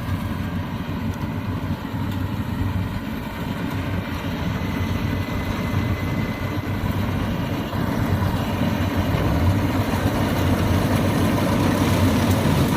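Diesel engine of a rice combine harvester running steadily, a dense low drone that grows a little louder toward the end.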